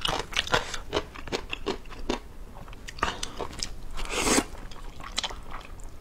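Close-miked eating of spicy instant noodles: wet chewing with many small mouth clicks, and one louder slurp of noodles about four seconds in.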